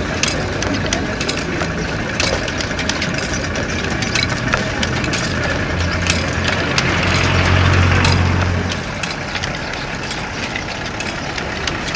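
Busy market ambience full of scattered clicks and knocks, with a low engine hum that grows louder for a few seconds midway and then fades back.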